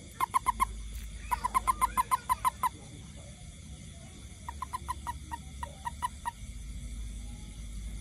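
Toad chirping in quick trains of short pulses, several a second: a brief train at the start, a longer one about a second in and another past the middle, while it is gripped around the body. This is the release call a toad gives when clasped.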